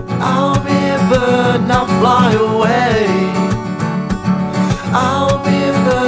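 Song with an acoustic guitar strummed steadily, and a melody line above it that bends and wavers in pitch.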